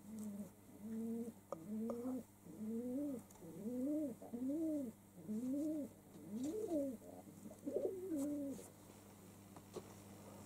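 Domestic pigeon cooing: a run of about a dozen low coos, each rising and falling, that stops a couple of seconds before the end.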